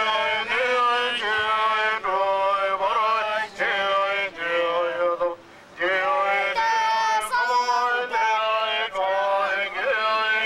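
Protest slogans chanted in rhythmic phrases through a megaphone, the voice sounding narrow and harsh, with a brief pause about five seconds in.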